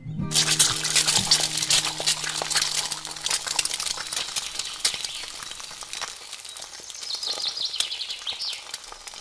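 An egg hits hot oil in a tiny steel frying pan over a small wood fire and sizzles loudly. It then keeps frying with a dense crackling and spattering that slowly eases off.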